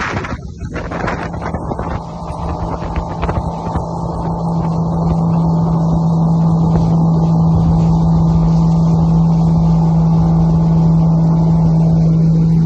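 Boat engine running with a steady hum, one constant low tone over a noisy bed.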